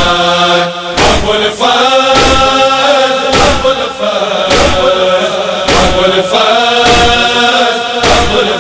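Noha interlude: men's voices chanting a long held line in unison over a steady matam chest-beating rhythm. There is a heavy stroke about once a second, with lighter strokes between.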